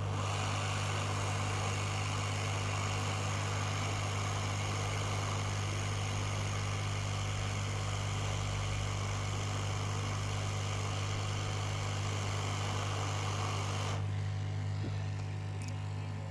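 Hot air rework station blowing a steady hiss of air to heat and lift a small diode off a circuit board, over a constant mains hum. The airflow cuts off about fourteen seconds in, leaving only the hum.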